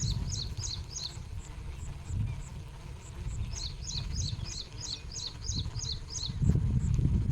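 A bird calling in two runs of quick, high, two-part descending chirps, about three a second, with a faint, regular high ticking underneath. A low rumble swells near the end.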